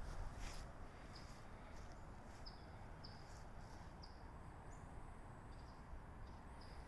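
Faint, short high chirps that drop slightly in pitch and repeat every half second to a second, like a small bird chirping, over a steady low background hum.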